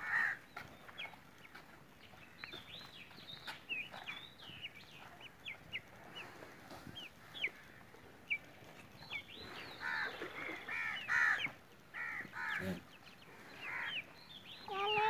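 Yard birds calling: many short high chirps throughout, a louder run of harsh calls about ten to eleven seconds in, and a hen starting to cluck near the end.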